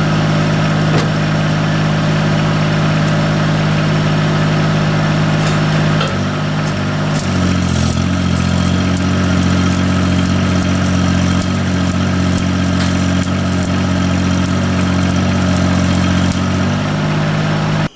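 Engine-driven stick welder running. Its engine steps up in speed about six seconds in, when the arc is struck, and drops back near the end. Through the middle there is the crackle of a 5/32 7018 rod burning.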